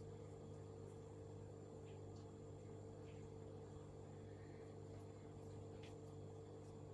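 Near silence: a steady low hum of room tone, with a few faint ticks.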